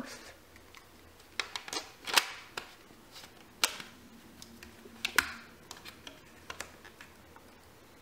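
Hard plastic shape-sorter pieces clicking and knocking against each other as they are handled: irregular sharp clicks, the loudest about two seconds in and about five seconds in.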